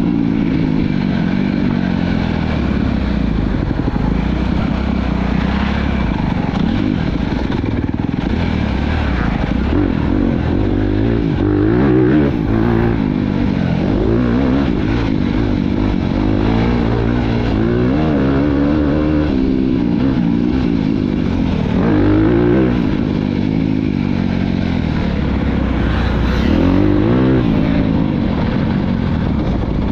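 Motocross bike engine heard from on the bike, revving up and dropping back again and again as the rider works the throttle and gears.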